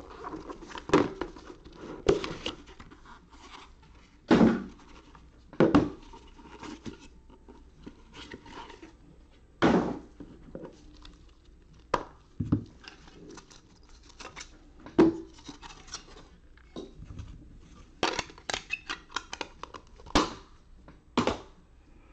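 Trading-card hobby box being opened by gloved hands: rustling and tearing of packaging, with scrapes and sharp taps at irregular moments and a quick run of small clicks near the end as the cards inside are handled.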